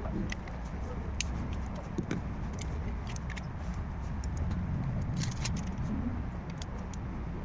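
Scattered light clicks and clinks of small repair tools and phone parts being handled, over a steady low traffic rumble.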